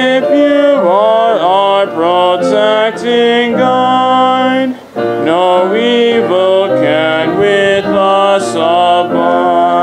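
A hymn sung by a small group of singers with instrumental accompaniment, with a short break between lines about five seconds in and a held chord near the end.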